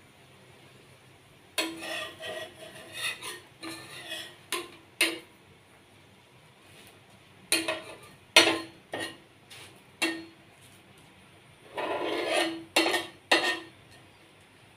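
Metal spatula scraping and knocking on a flat griddle as a naan is pressed and turned, in three bouts of scrapes and sharp clinks with short pauses between.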